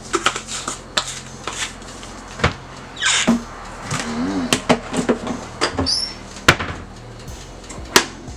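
Kitchen handling noises: a string of sharp, irregular clicks and knocks as containers and utensils are handled, with a short rustle about three seconds in.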